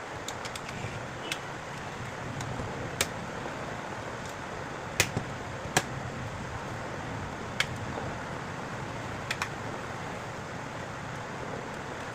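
Scattered light clicks and taps from a smartphone and small repair tools being handled, about ten in all, the sharpest around the middle, over a steady background hiss.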